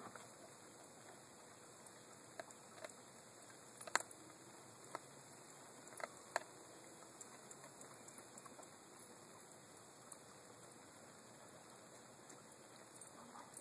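Dog chewing a rabbit head: a few scattered sharp crunches and cracks of bone, the loudest about four seconds in, over a near-silent background.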